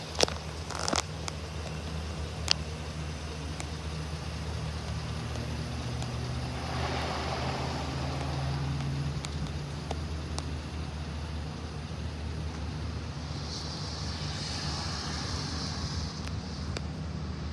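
Chevrolet Silverado 3500HD pickup engine idling steadily with a low, even hum. There are a few sharp clicks in the first few seconds.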